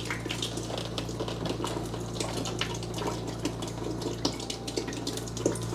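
Waste water running and splashing out of a cut-open household drain line, with many small irregular drips and splatters over a steady low hum.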